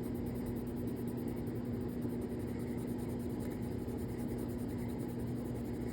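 Steady low hum with a faint even hiss: background room noise, unchanging throughout.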